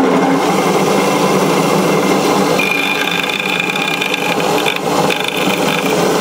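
Vintage Hopkins bench grinder running steadily on its first test power-up, the old motor working without trouble. From a little under halfway, metal held against the grinding wheel adds a high grinding whine.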